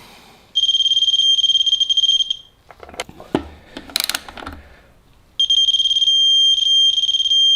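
A shrill electronic beeper sounds a steady high tone for nearly two seconds, then again for about two seconds with a few short breaks. Between the two beeps come a few sharp clicks and knocks.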